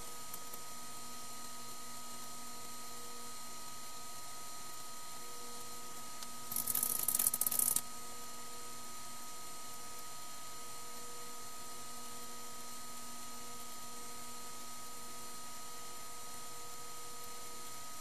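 Steady electrical hum and fan whir of a running desktop computer during a software install, several fixed tones over an even hiss. About six and a half seconds in comes a burst of rapid crackly clicking lasting just over a second.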